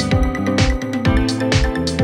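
Background music with a steady beat, a low kick drum about twice a second over sustained chords.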